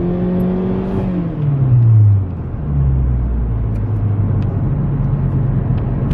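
Turbocharged four-cylinder engine of a 10th-generation Honda Civic, with its blow-off valve blocked off, under acceleration. The engine's pitch climbs until about a second in, drops away over the next second or so, then settles into a steady lower drone.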